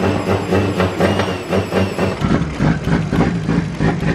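Turbocharged Toyota 2JZ-GTE engine idling unevenly, running strangely: the fault is a VVT valve stuck in one position, which has turned the cam gear to its end stop.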